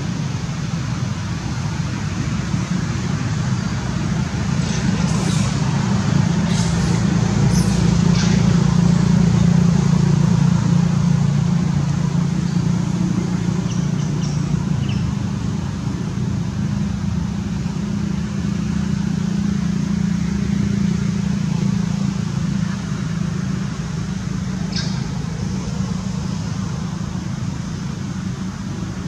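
A steady low motor rumble, swelling about eight to ten seconds in and then slowly easing off. A few short high squeaks or calls come through about five to eight seconds in and once more near twenty-five seconds.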